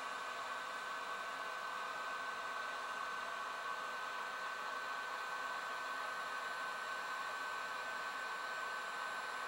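Heat gun running steadily: a constant blowing hiss with a thin, steady high whine. It is heating a CRT's bonded safety glass to soften the decaying PVA layer beneath it.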